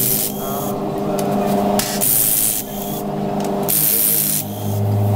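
Pneumatic impact wrench working a wheel's lug nuts, running in short hissing bursts about every two seconds, over a steady low hum.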